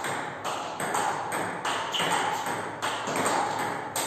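Table tennis balls being hit back and forth in quick succession: sharp clicks of ball on bat and ball on table, several a second.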